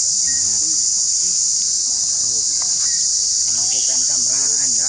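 Steady, high-pitched drone of an insect chorus, running unbroken and even in level.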